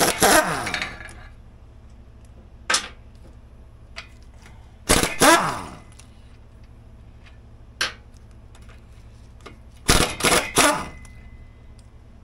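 Cordless power tool run in three short bursts on the 7/16 bolts of a snowmobile motor plate, its whine falling in pitch as it spins down each time, with a few light metallic clinks between the bursts.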